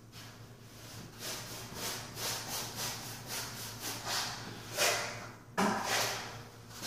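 Paintbrush being worked back and forth on a painted closet wall while cutting in a line, a rhythmic scratchy swishing of about three strokes a second. Near the end, louder scraping and knocking as the brush goes into the paint bucket.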